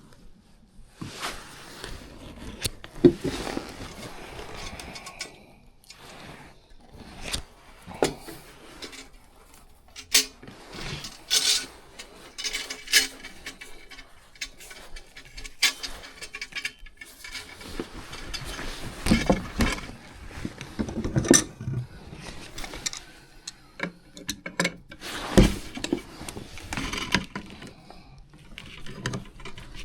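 Metal furnace parts and hand tools being handled at close range: irregular clicks, clinks and knocks, some sharper than others.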